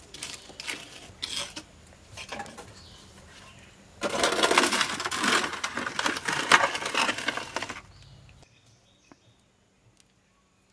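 A metal roasting tray scraping and grating across the ash-covered brick floor of a wood-fired oven as it is pushed in, loudest for about four seconds from around four seconds in. Before that come scattered light clinks and scrapes as the embers are moved.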